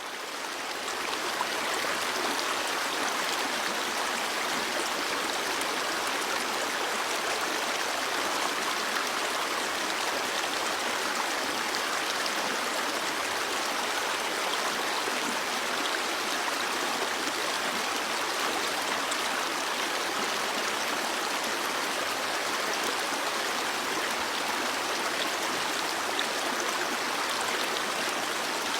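A flowing stream, its water running with a steady rushing sound that fades back in over the first second or so.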